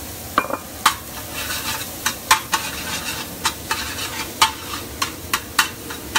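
Mushrooms sizzling in butter and oil in a hot pan as onion and garlic are stirred in, with the cooking utensil clicking sharply and irregularly against the pan about twice a second.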